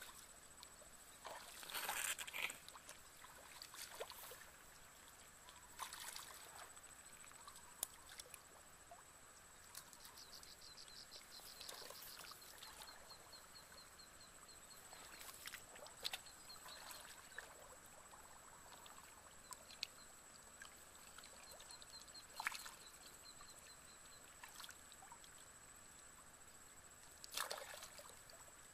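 Faint splashing and trickling of shallow muddy water as hands grope through it for fish, with a few sharper splashes scattered through, the loudest about two seconds in and near the end. A fast, high pulsing trill comes and goes twice in the background over a constant high whine.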